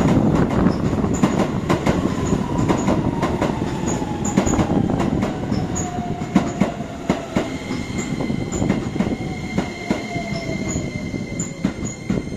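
Keisei electric train pulling into the station and slowing to a stop. Wheels click over the rail joints while the motor whine falls steadily in pitch as it slows, and a thin steady high squeal joins in about halfway through.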